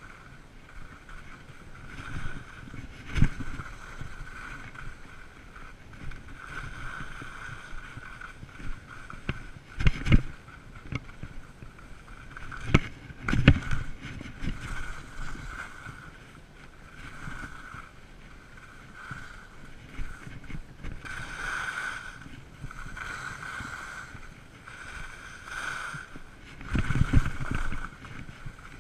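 Skis hissing and scraping over snow during a downhill run, with wind on the microphone. Sharp thumps break in a few times as the skis hit bumps, loudest around ten and thirteen seconds in, with a rougher stretch near the end.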